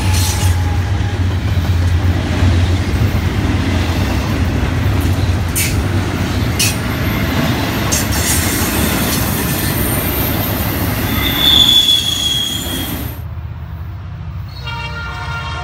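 Double-stack intermodal freight train rolling past close by: a steady rumble of wheels on rail, two sharp clanks around the middle and a brief high wheel squeal near the end. After an abrupt cut, a locomotive horn starts sounding from an approaching train near the end.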